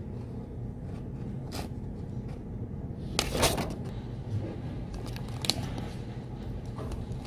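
Handling noise from paper and a plastic clamshell food container: a few light taps and rustles, with a brief plastic crinkle about three seconds in, the loudest sound here. Under it runs a steady low hum of room tone.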